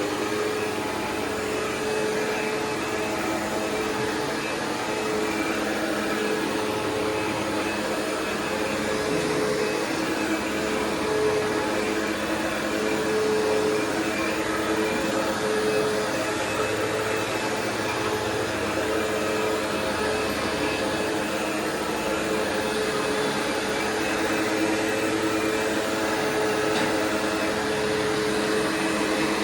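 Windsor Sensor commercial upright vacuum cleaner running steadily at full speed: a loud, even motor hum with a steady whine on top.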